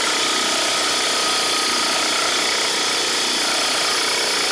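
A power tool running steadily at one constant speed, with a faint steady whine above its noise.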